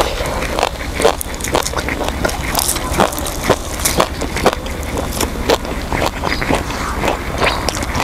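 Close-miked chewing and crunching of crispy fried quail, eaten bones and all: sharp crackles about twice a second over a steady low hum.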